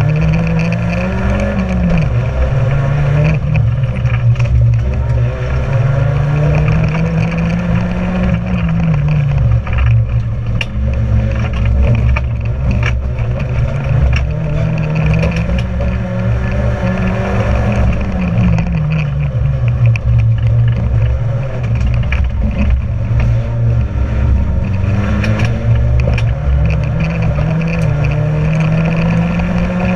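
Racing car's engine heard from inside the cabin, revving up through the gears and easing off again several times as it is driven around a wet track, over a steady rumble of road and tyre noise with scattered light clicks.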